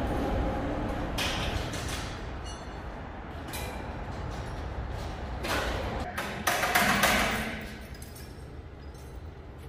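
Workshop tool noises from brake repair on an old tractor: a few short knocks and scrapes of metal on metal, the loudest about seven seconds in, over a steady low hum.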